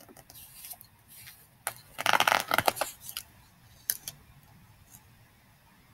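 Page of a picture book being turned: paper rustling and sliding in short bursts, loudest about two seconds in.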